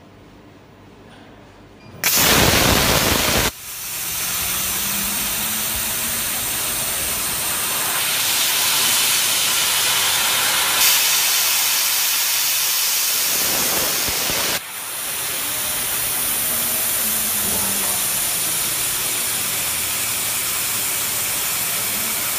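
Laser cutter's air assist blowing a steady hiss through the cutting nozzle while it cuts thick acrylic sheet, with a faint rising and falling whine from the head's drive motors as it moves. A louder burst of hiss comes about two seconds in and lasts about a second and a half.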